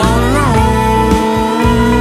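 Blues-rock band playing: guitar over a steady low beat, with one note bending about half a second in and then held.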